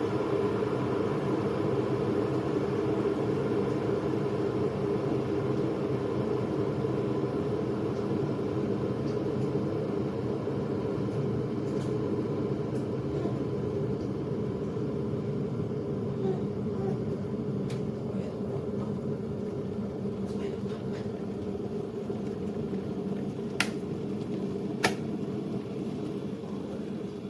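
Stainless steel electric kettle heating water, giving a steady rumbling noise that slowly eases off. Two sharp clicks come near the end.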